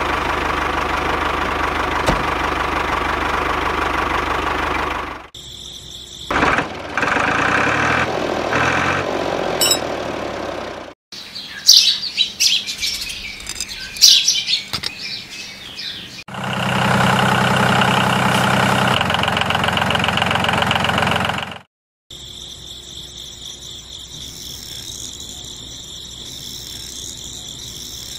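Tractor engine running in several separate stretches that break off abruptly, with birds chirping in the middle.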